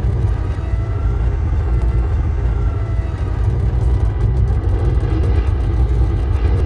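Sound-effect interior engine noise of the N-1 starfighter: a steady, heavy low rumble as heard from inside the cockpit, with a faint thin high tone drifting in for a couple of seconds about a second in.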